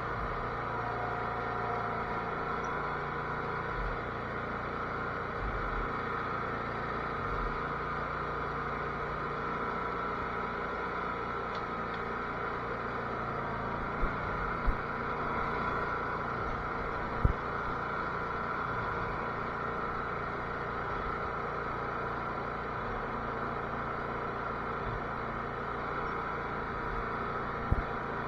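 Cub Cadet garden tractor engine running steadily, with four short sharp knocks over it, two close together about halfway through, one a few seconds later and one near the end.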